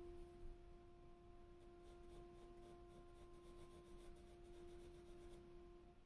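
Near silence: faint pencil strokes on paper under a faint steady tone that stops just before the end.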